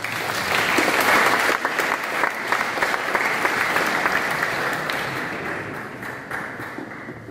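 Audience applauding, loudest about a second in and slowly fading toward the end.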